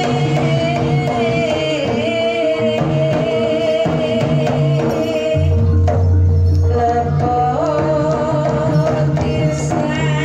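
Live Banyumasan jaranan (kuda kepang) music: a wavering lead melody over a steady held note, sustained low bass and busy drum and percussion strokes.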